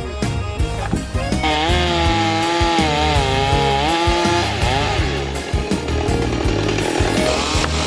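A chainsaw running and cutting wood, its pitch wavering, starting about a second and a half in. Forró music with a steady bass beat plays underneath.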